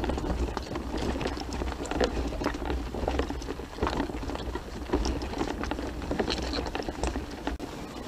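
Gravel and loose stones crunching on a rough track as the party moves along it, an irregular run of small crackles and clicks, with a low steady rumble underneath.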